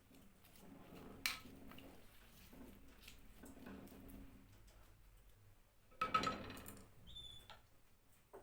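Kitchen utensils and dishes being handled during food preparation: a sharp clack about a second in, soft knocking and scraping, then a louder clatter with a brief ring about six seconds in.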